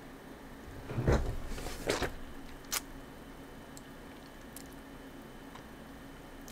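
Chewing a mouthful of small pressed Ramune candy tablets, which crumble almost at once, with two louder crunches about one and two seconds in and a sharp click just before three seconds.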